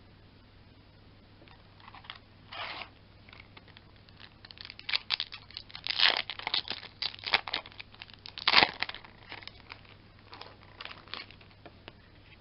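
A foil booster-pack wrapper being torn open by hand. After a quiet start comes a few seconds of crinkling, crackling rips, with the loudest sharp tear about two-thirds of the way in, then lighter rustling of foil and cards.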